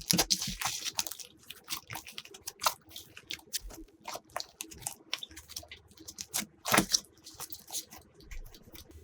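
Glossy slime being squished and stretched by hand, making a steady run of irregular sticky clicks and pops, with a few louder pops around three and seven seconds in.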